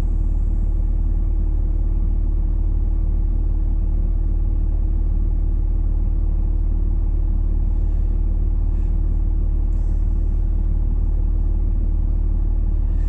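Vehicle engine idling, heard from inside the cab as a steady low rumble with an even hum.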